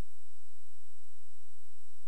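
Steady recording hiss with a thin, constant high whine and no distinct sounds: the background noise of a silent recording.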